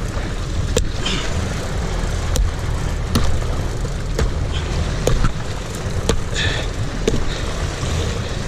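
A series of sharp knocks, roughly one a second at uneven spacing, from a small club striking a gaffed yellowfin tuna at the boat's side to subdue it. Under them runs the boat's steady low rumble with wind and sea noise.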